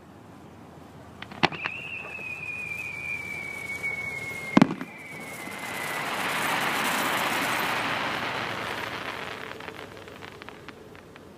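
Fireworks: a bang about a second and a half in, then a long whistle that slowly falls in pitch. A louder bang comes a few seconds in, followed by a long crackling hiss that swells and fades over several seconds.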